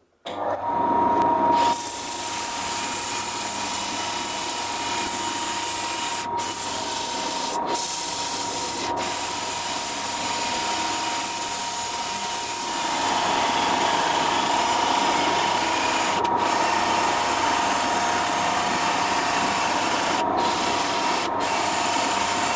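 Cordless drill spinning a sanding disc against a walnut-shell-and-resin cylinder turning on a wood lathe: a steady motor whine under a rough sanding hiss. The hiss breaks off briefly several times, and everything gets louder about halfway through.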